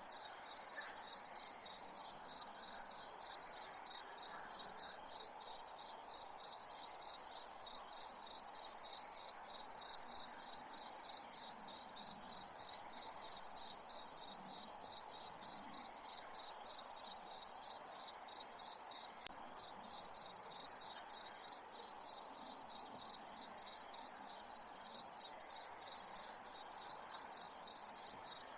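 Cricket chirping: one high, steady-pitched chirp repeated in an even, fast rhythm, about three to four chirps a second.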